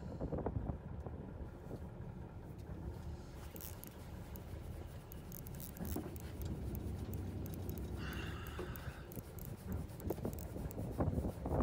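Steady low rumble of a fishing boat and wind on deck, with a few knocks and a brief higher rasp about eight seconds in.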